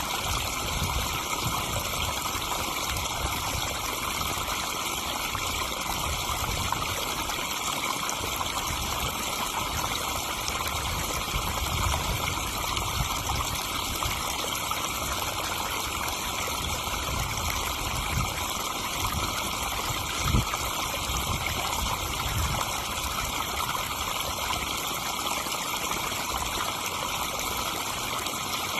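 Garden pond waterfall splashing and trickling steadily into the pond, with one brief thump about two-thirds of the way through.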